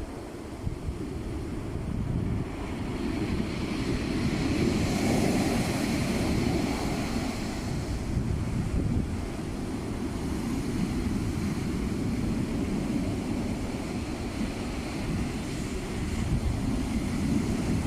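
Heavy sea surf breaking and washing up the beach, with wind rumbling on the microphone; the surf swells louder about four to seven seconds in.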